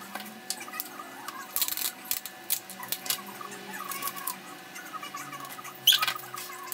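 Large sheet of white cardstock rustling and crackling as it is handled and creased by hand, with short squeaky sounds in between. The loudest is a sharp crackle of the sheet about six seconds in.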